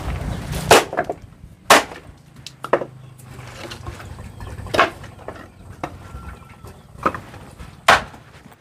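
Sharp knocks from construction work, about six of them at irregular intervals, over a low steady hum.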